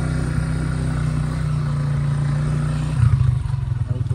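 A motor vehicle's engine running close by, steady and loud, then getting louder and rougher about three seconds in.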